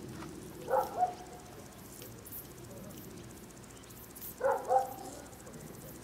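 A dog barking: two quick barks a little under a second in, and two more about four and a half seconds in.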